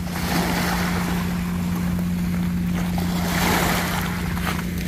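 Small sea waves washing over a pebble-and-gravel shore, swelling twice, with wind on the microphone and a steady low hum underneath.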